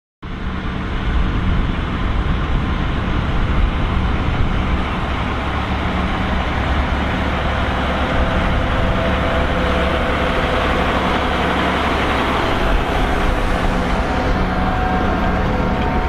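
The diesel engine of a John Deere 9560R four-wheel-drive tractor running steadily under heavy load, pulling a ten-furrow Kuhn Vari-Challenger reversible plough through the soil. It cuts in suddenly a fraction of a second in.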